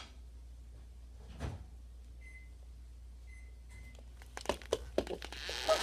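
Three short, faint, high electronic beeps, then a quick run of small clicks and knocks of handling in a small room.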